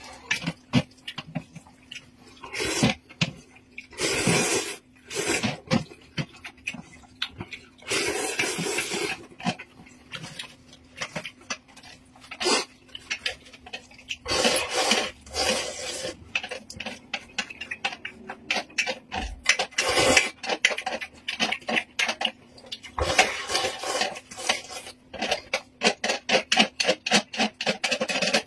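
A person slurping noodles from a steel pot in several long noisy sucks, chewing between them. Chopsticks click against the metal pot throughout.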